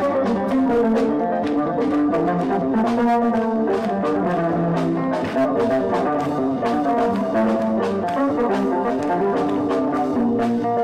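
Instrumental gospel band music: a brass-sounding melody of held notes over a steady drum beat.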